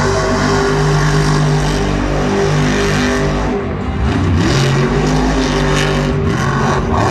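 Monster truck's supercharged V8 engine running hard at high revs, easing off briefly about three and a half seconds in and then building again.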